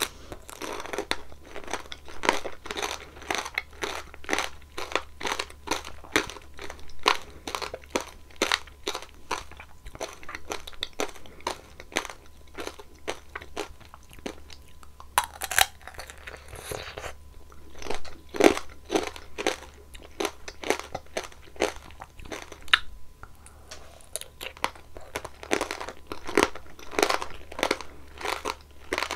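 Close-miked eating of strawberry tanghulu: the hard candied sugar shell cracks and crunches between the teeth in quick, crisp snaps while the strawberries are chewed. Louder bite cracks come about fifteen and eighteen seconds in.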